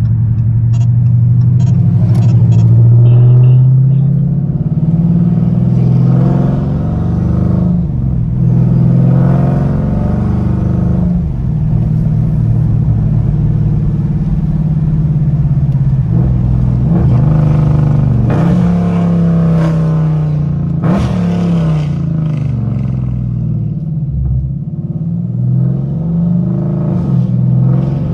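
2020 Dodge Scat Pack's 6.4-litre HEMI V8 running through Stainless Works headers and catless midpipes with no cats or mufflers, heard loud from inside the cabin on light throttle while driving. The exhaust note rises and falls repeatedly with the throttle, with several short rising sweeps.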